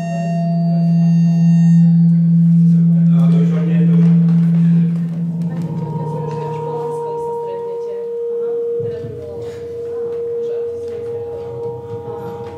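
Acoustic feedback from condenser microphones aimed at active loudspeakers: steady held tones. A low tone gives way, about five seconds in, to two higher tones held together.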